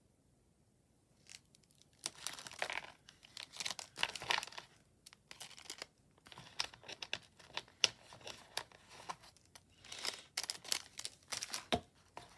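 Tissue paper and plastic packets rustling and crinkling as they are handled and unpacked, with sharp crackles throughout, starting about two seconds in after a brief quiet spell.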